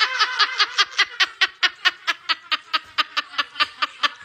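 Rapid cackling laughter, an even run of short high-pitched 'he-he-he' pulses, about six a second.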